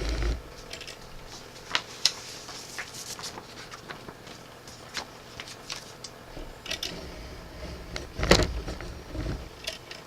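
Paper handling: a large folded poster and other paper items rustling and crinkling, with scattered light clicks and a louder rustle about eight seconds in.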